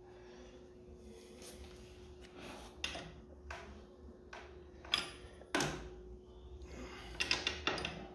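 Scattered metallic clinks and knocks of hand tools on a scooter engine's flywheel as a flywheel puller is worked, with a quick flurry of clacks near the end.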